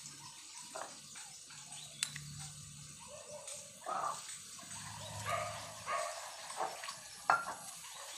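Kittens at play: scattered short scuffling and rustling, busier in the second half, with a sharp tap about two seconds in and a louder one near the end.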